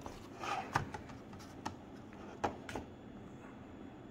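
Light handling sounds as a hand takes a VooPoo Drag vape mod from its boxed foam insert: a soft rustle and a few sharp little clicks and taps, spread over a few seconds.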